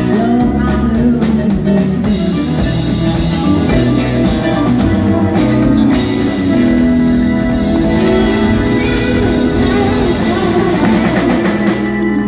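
Live band playing amplified through a PA, with guitar and drum kit, and a woman singing in parts.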